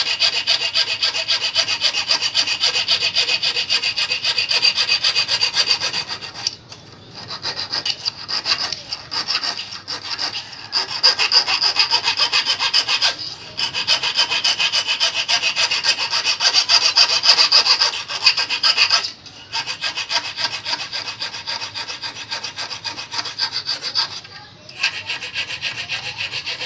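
A flat steel hand file rasps rapidly back and forth on a steel fishing hook held in pliers, sharpening and shaping the hook's point and barb. The strokes run in long runs, broken by brief pauses about four times.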